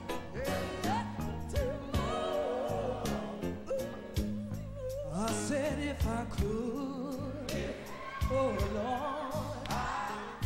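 Live gospel music: a woman's lead voice sings long, wavering runs that slide up and down in pitch, over a band with drums.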